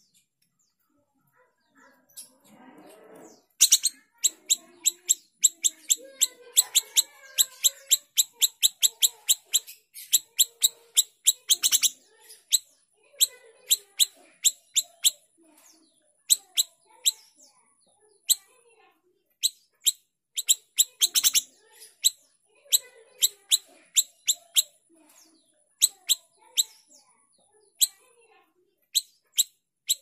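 Caged small siri-siri, a Sumatran bulbul, calling loudly in long runs of short, sharp, high notes, about four a second, with short pauses between the runs. The calling starts about three and a half seconds in.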